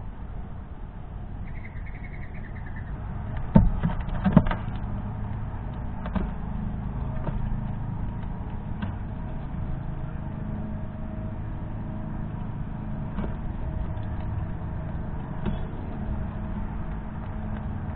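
Sharp knocks and scattered clicks close to the microphone as a fox squirrel moves and feeds among sunflower seeds on a plastic feeder tray. The two loudest knocks come about three and a half and four and a half seconds in, over a low steady outdoor rumble.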